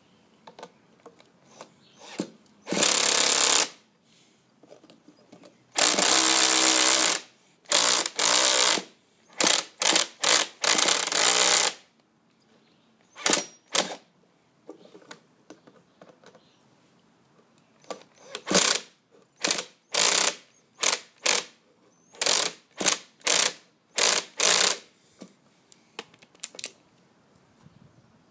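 The nitro engine of a 1/5 scale RC motorbike being spun over by its starter in repeated short bursts, about fifteen in all, and never firing. The longer tries come early and shorter jabs follow, as the drivetrain locks up, which the owner puts down to the clutch jamming.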